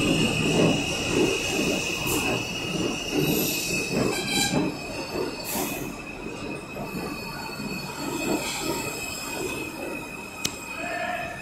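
New York City subway E train pulling out past the platform, its steel wheels giving a steady high squeal over a rhythmic clatter of wheels on the rails. The squeal is strongest in the first few seconds, and the whole sound slowly fades as the last car moves off.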